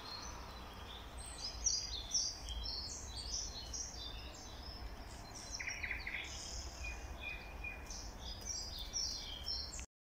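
Several songbirds singing at once, short chirps and trills overlapping throughout, over a low steady rumble. The sound cuts out briefly just before the end.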